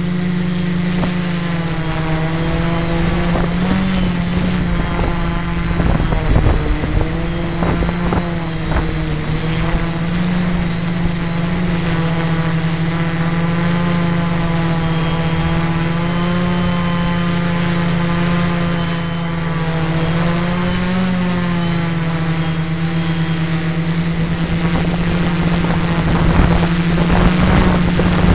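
Quadcopter's electric motors and propellers whining steadily as it flies, the pitch wavering slightly as it manoeuvres, with a few brief low rumbles of wind on the microphone.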